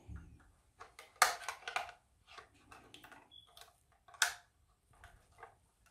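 Irregular plastic clicks and scrapes as a guitar pick pries at the seam of a camping control unit's plastic housing, releasing the clip tangs that hold the front fascia to the rear. Two louder, sharper clicks come about a second in and again just after four seconds.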